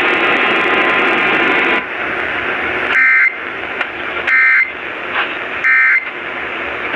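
Emergency Alert System end-of-message data tones received over AM radio: three short bursts of the two-tone SAME warble, about a second and a half apart, closing the required monthly test. Loud radio static with a hum runs underneath, dropping to a lower hiss about two seconds in.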